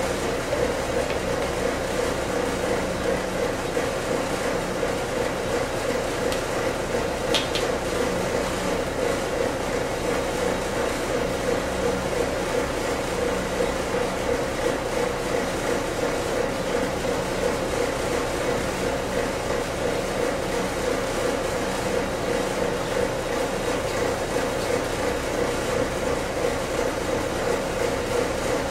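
A steady machine hum with a constant droning tone, unchanging throughout, and one brief high squeak about seven seconds in.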